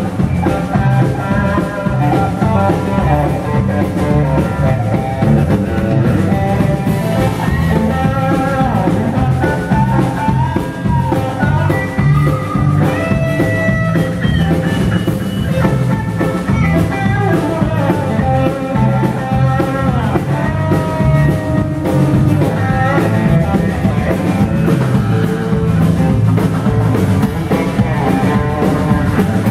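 Live rock band playing an instrumental stretch with no singing: electric guitar, acoustic guitar and a drum kit.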